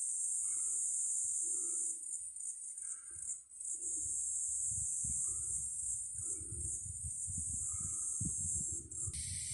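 Steady high-pitched drone of an insect chorus in the bush, with a soft low note repeating roughly once a second beneath it. From about halfway a low rumble on the microphone joins in.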